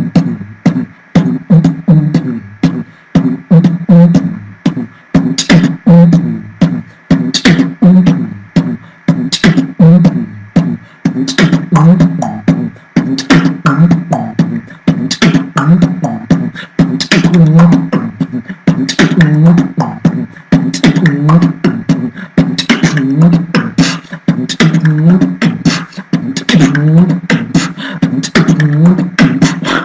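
Solo human beatboxing: one mouth layering sharp kick, snare and hi-hat clicks over a hummed bass line, several sounds at once in a fast, steady beat.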